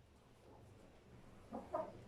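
Chicken clucking: two short clucks in quick succession near the end, over a low background.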